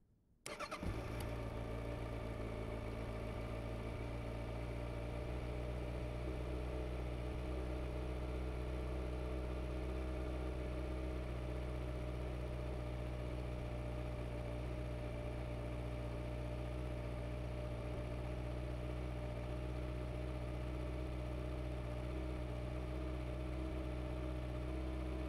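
2021 Kawasaki Ninja ZX-6R's 636 cc inline-four engine starting about half a second in, then idling steadily through its stock exhaust.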